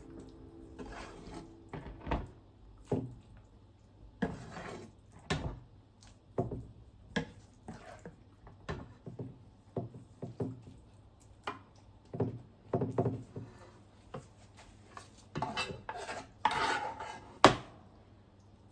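Kitchenware being handled: irregular knocks, clinks and short scrapes of dishes and utensils, with a longer scrape and then one sharp, loud knock near the end.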